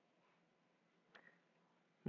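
Near silence: faint room tone, with one brief faint sound just past the middle.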